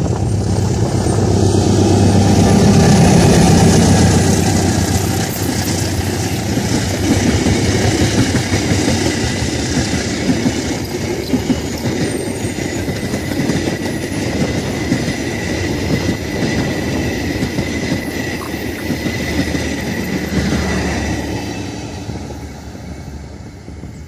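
A diesel-hauled train passing at speed: the locomotive is loudest about three seconds in, then the wagons roll by with a clickety-clack over the rail joints. In the second half a thin, steady wheel squeal joins in, and the whole train fades away near the end.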